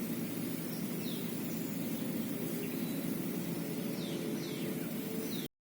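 Outdoor ambience: a steady low rumble with a few faint, short, high bird chirps. It cuts off suddenly near the end.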